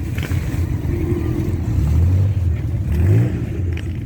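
Big motorcycle engines rumbling past in a convoy, with a deep low tone that swells and rises as the revs climb about two and a half seconds in.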